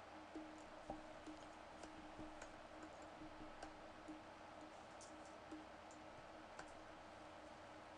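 Near silence with faint computer mouse clicks, a dozen or so, scattered irregularly, over a faint steady low hum.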